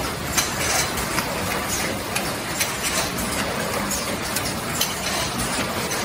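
Tin can making line running: a steady machine hiss with frequent, irregular metallic clicks and clinks as can bodies move along the conveyor and through the machinery.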